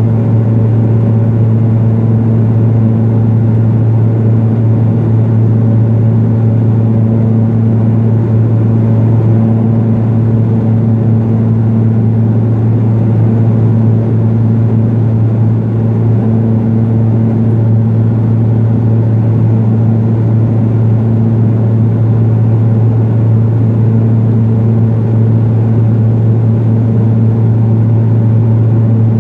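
Cabin drone of a Pilatus PC-12 in flight: its single PT6A turboprop engine and propeller make a loud, steady low hum over rushing air noise, unchanging throughout.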